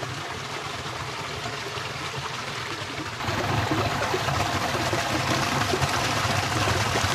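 Shallow rocky stream running, then about three seconds in the louder, steady splash of a small waterfall pouring into a pool.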